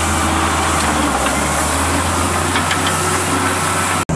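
John Deere 7210 tractor's six-cylinder diesel engine running steadily under load as it pulls a lime spreader that is throwing lime, with a steady hissing wash over the engine note. The sound cuts off abruptly near the end.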